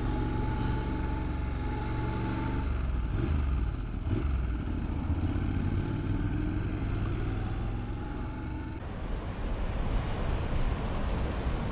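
Honda motorcycle engine running on the move, heard from the bike with a rush of air noise. The steady engine note changes about two and a half seconds in, and the sound eases off near the end.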